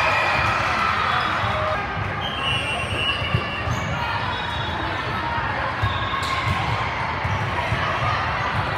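Volleyball game in a large gym hall: indistinct chatter and shouts from players and spectators, with repeated thuds of balls being hit and bouncing on the court, one sharper smack a few seconds in.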